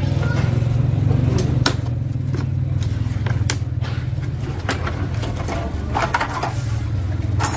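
A motor or engine running with a steady low rumble, with a few sharp clicks or taps on top.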